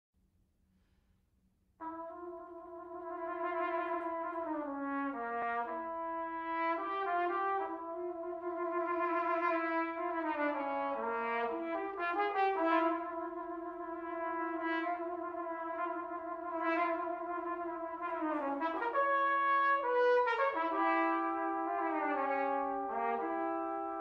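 A brass sextet of C and B-flat trumpets and flugelhorns playing together, coming in suddenly about two seconds in with held chords, the parts moving between notes every second or so.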